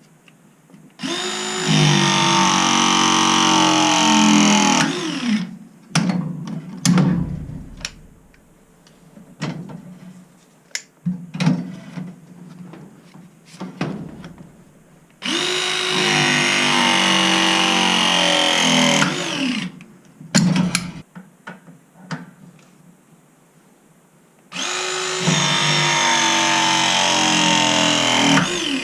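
ProPress pressing tool running three press cycles of about four seconds each: the motor spins up, runs steadily while crimping a fitting, then winds down. Clicks and knocks come between the cycles.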